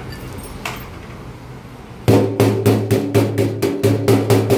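A steady hiss from the welding arc, then about two seconds in a hammer starts striking the steel fuel tank at the fresh weld in a rapid, even series of loud blows, about four to five a second, each ringing on through the hollow tank.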